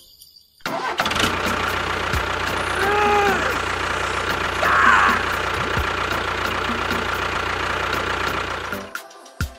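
A motor running steadily, starting about a second in and cutting off near the end, with a short rising-and-falling tone about three seconds in and another brief falling tone around five seconds.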